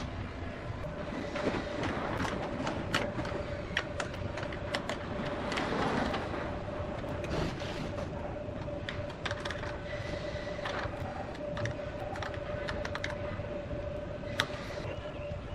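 A small motor running steadily with a constant hum, with irregular metallic clicks and knocks throughout.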